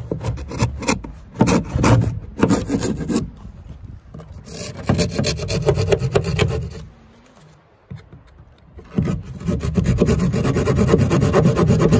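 Small multi-tool saw blade hand-sawing through wooden siding in quick back-and-forth strokes, cutting out an opening, in three bouts with short pauses between.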